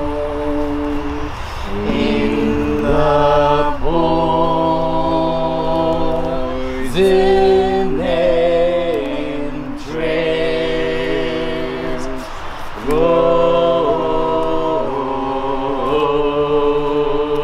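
Ensemble of voices singing an unaccompanied chant in close harmony: long held notes over a low drone, the chord changing every second or two.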